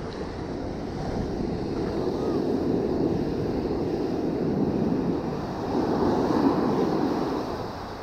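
Ocean surf washing up the beach, with wind buffeting the microphone; the wash swells over several seconds and eases near the end.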